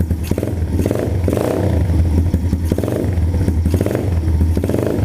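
TaoTao DB17 125cc pit bike's four-stroke single-cylinder engine running steadily with an even rapid firing beat, freshly filled with oil and run so the new oil circulates before the level is rechecked.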